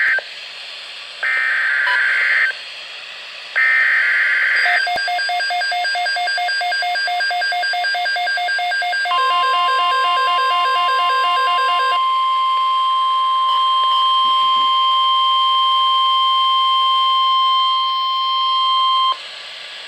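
Emergency Alert System weather alert tones: two to three short screechy digital header bursts, then a rapidly pulsing beep alarm. A single steady warning tone of about 1050 Hz overlaps the beeps and runs alone for about ten seconds before cutting off near the end.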